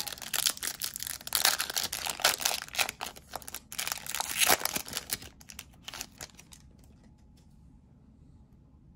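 Foil wrapper of a Bowman Chrome trading-card pack being torn open and crinkled by hand, with dense crackling. It stops about six seconds in.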